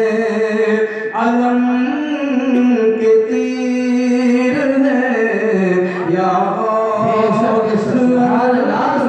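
A man singing a naat, drawing out long held notes that step up and down in pitch.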